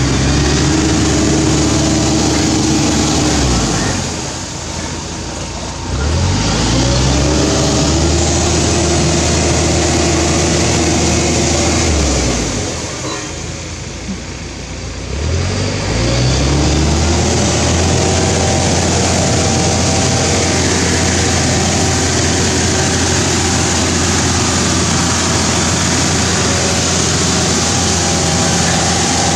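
An engine running steadily nearby; twice it slows and quietens, then picks back up to the same steady speed.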